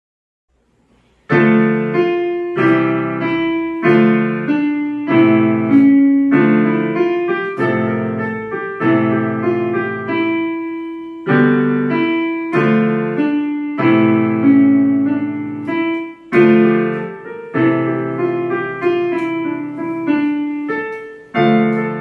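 Background piano music: slow, evenly paced notes and chords, each struck and left to ring away. It starts about a second in.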